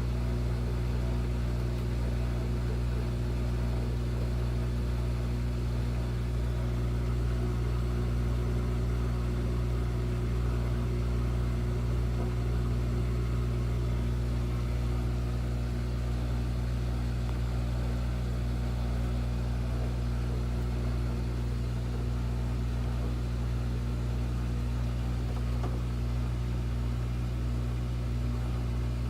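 Washing machine motor humming steadily, with no rise in pitch of a spin getting up to speed: the washer is failing to spin.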